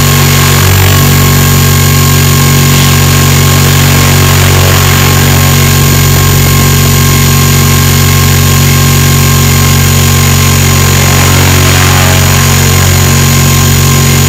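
Radio-controlled helicopter's motor and rotors running at a steady speed, close and loud to its onboard camera: a constant whine and buzz with no change in pitch.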